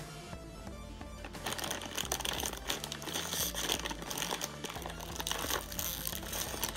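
Plastic blind-bag packaging crinkling as it is squeezed and pulled open by hand, getting busier about a second and a half in, over background music.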